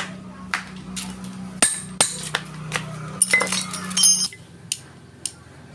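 A hammer tapping a metal pipe driver to seat a new rear-wheel oil seal in a scooter's final-drive gear case: about a dozen irregular, sharp metal clinks, some ringing. A steady low hum runs underneath and stops about four seconds in.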